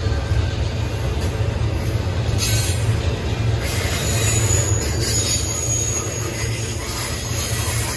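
Double-stack intermodal well cars rolling past at speed, a steady rumble of steel wheels on rail.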